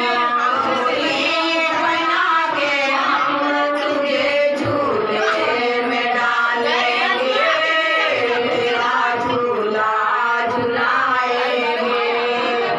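A woman singing a slow song into a microphone, with long held, wavering notes, sung at a baby's cradle-placing ceremony.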